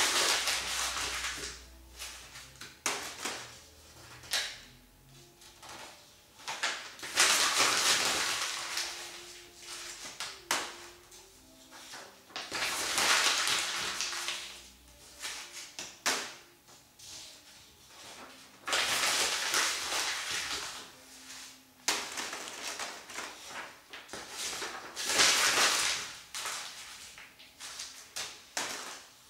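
A sheet of paper crumpled and squeezed between the hands. It crackles in about five bursts of a few seconds each, with quieter rustling and small clicks in between.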